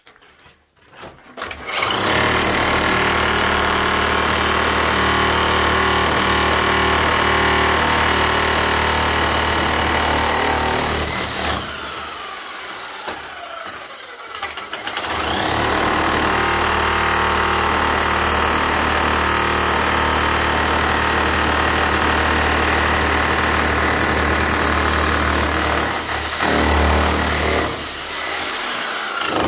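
Electric demolition hammer (breaker) chiselling into concrete, starting about two seconds in and running steadily, with a few seconds' lull around the middle and a short break near the end.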